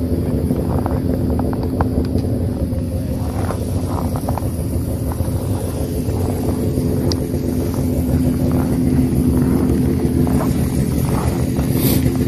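An engine idling steadily, its low even hum growing a little louder about two-thirds of the way through.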